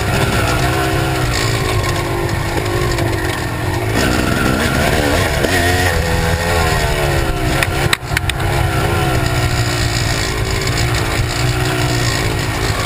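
Kawasaki KX250 two-stroke dirt bike engine under way, its pitch rising and falling as the throttle is worked, over a heavy low wind rumble on the microphone. There is a brief drop and a sharp knock about eight seconds in.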